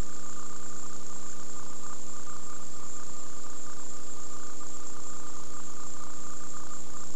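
Steady electrical buzz and hiss with a high-pitched whine on a cable channel's audio feed behind a static station logo card.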